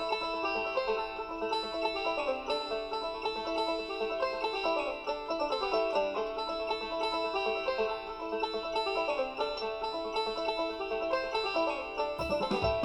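Background banjo music, a quick plucked bluegrass-style tune.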